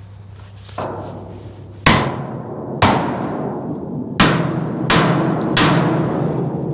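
Hammer blows on the steel frame of a truck dump bed: one light blow, then five heavy ones, each leaving a metallic ring. The blows are meant to crack the bed free at its pivot, where the welds have been cut.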